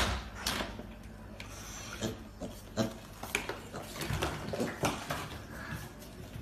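Piglets' small hooves clicking and tapping on a tiled floor as they trot in, with a few short grunts. A sharp knock comes right at the start.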